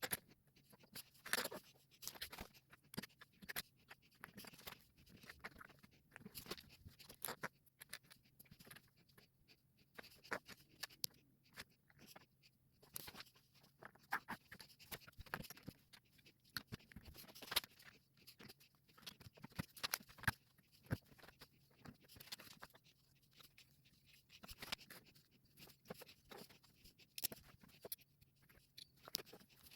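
LEGO plastic bricks being handled and pressed together: irregular small clicks and snaps, some sharper than others.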